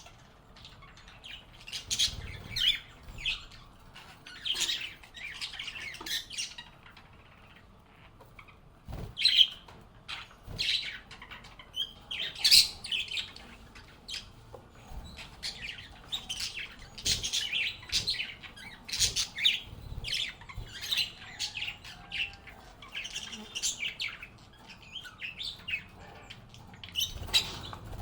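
Pet lovebirds chirping, a flock of short, sharp calls following one another in quick succession.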